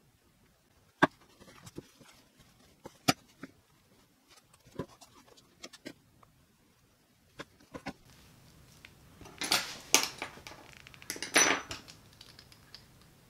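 Hand-stitching a leather knife sheath: scattered sharp clicks and taps as the needles are pushed through the leather and the thread is drawn tight. Near the end comes a busier flurry of clattering and scraping handling sounds.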